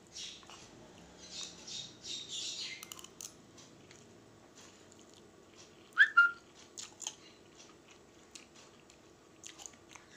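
Close-up eating sounds from fried instant noodles (Indomie goreng) eaten with a spoon: chewing, a hissy slurp in the first few seconds and scattered small clicks. About six seconds in comes a brief high squeak, the loudest sound.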